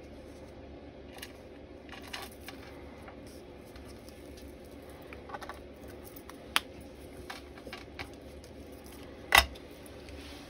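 Light handling of paper and a marker on a cutting mat: a low steady hum with scattered small clicks and taps, and one louder knock about nine seconds in.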